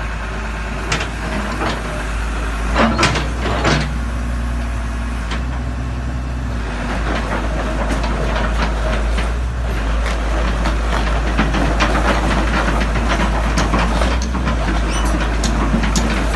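Sumitomo S280F2 hydraulic excavator's diesel engine running steadily, with a few sharp metallic knocks in the first few seconds. From about seven seconds in it gets louder and busier, with many rattles and clicks as the machine works.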